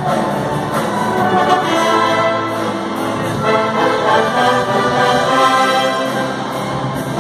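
Church orchestra of strings, brass and woodwinds playing a hymn in sustained chords.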